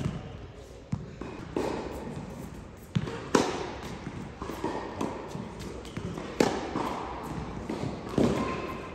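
Tennis rally: a racket striking the ball several times, with the ball bouncing on a clay court and footsteps sliding on the clay, the hits echoing in a large indoor hall.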